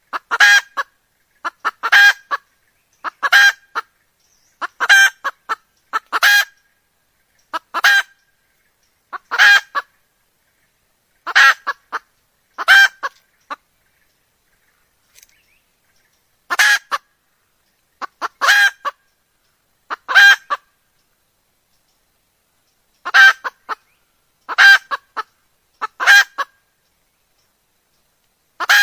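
Red junglefowl hen calling: short cackling 'kekek' notes in quick pairs or threes, about every one and a half seconds, with a pause of about three seconds midway. This is the call of a hen in breeding condition, used as a lure that draws junglefowl cocks in.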